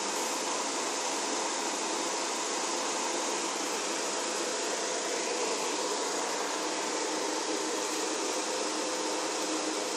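Steady, even background hiss with a faint hum, unchanging throughout; no distinct sounds from the dog or the toy stand out.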